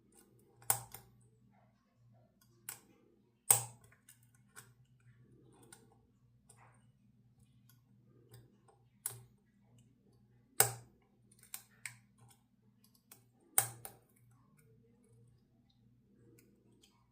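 Lock pick and tension wrench working the pins of a challenge lock cylinder: sharp metal clicks at irregular intervals, a few seconds apart, over a faint steady low hum.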